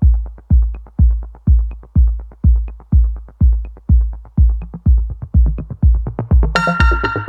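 Electronic background music with a steady kick drum, about two beats a second; a bright synth part comes in near the end.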